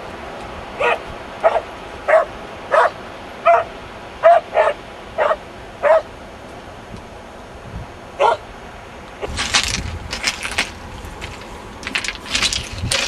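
A dog barking repeatedly, about ten short barks in a steady string that thins out, then stops. Near the end, a run of crunching, scraping noises.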